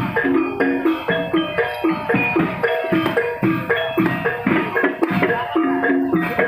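Javanese gamelan music: bronze metallophones struck in fast, repeating interlocking patterns over steady drumming.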